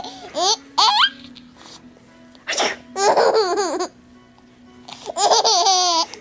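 A baby laughing in several separate bursts of high, quivering giggles, set off by an adult's fake sneezes.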